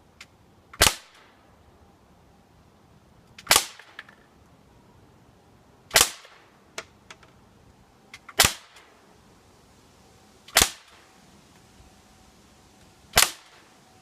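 Umarex XCP CO2 BB pistol firing six single shots, one sharp pop roughly every two and a half seconds, with a few faint clicks between shots.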